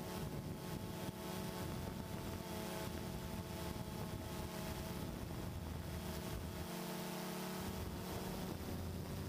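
DJI Phantom 2 quadcopter's motors and propellers whirring steadily in flight, with wind hiss over the onboard camera's microphone. The pitch shifts a little about two-thirds of the way through.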